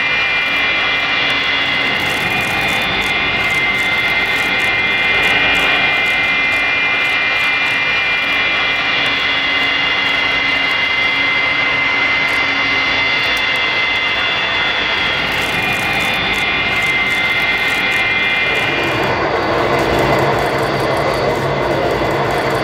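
Jet airliner engines running loudly, with several steady high-pitched fan whines over a broad engine noise. Near the end the whine fades and a lower rumble takes over.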